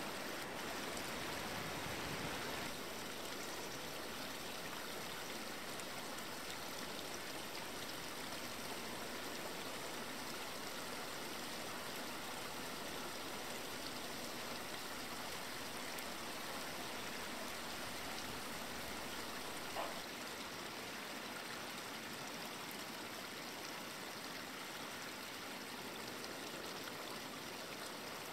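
Steady rushing of running water, with one short click about twenty seconds in.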